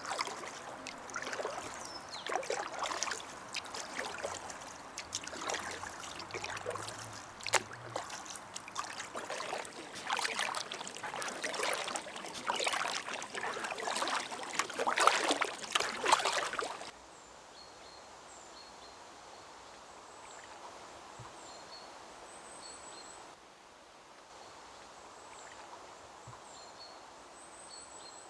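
Paddle strokes splashing and dripping in the water as a packraft is paddled, in an irregular run of splashes. After about seventeen seconds this gives way to a quieter steady water hiss with a few faint, short, high chirps.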